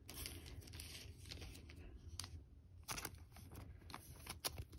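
A trading card being slid into a soft plastic penny sleeve: faint rustling of thin plastic, then a few small clicks and scrapes as the card is pushed in and handled.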